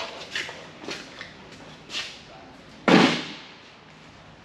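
Hard hardware being handled: a few light clicks and knocks, then, about three seconds in, one loud thud with a short ringing tail.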